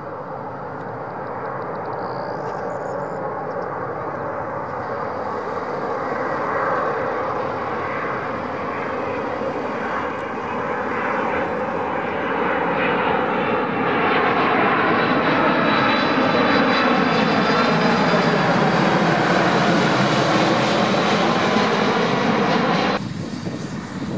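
Boeing 767's twin turbofan engines on landing approach, growing louder as the airliner passes low overhead, with a high whine and tones that slide in pitch as it goes by. The sound drops off suddenly near the end to quieter engine noise.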